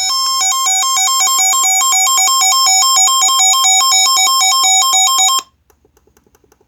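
Emergency weather alert tone: a loud, harsh electronic beep that switches rapidly back and forth between two pitches, heralding a severe thunderstorm warning. It cuts off abruptly about five seconds in, leaving only faint, regular ticking.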